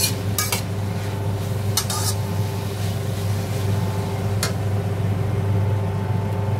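Metal spatula scraping and clinking against a wok while vegetables are stir-fried: several quick strikes in the first two seconds and one more about four and a half seconds in, over a steady low hum.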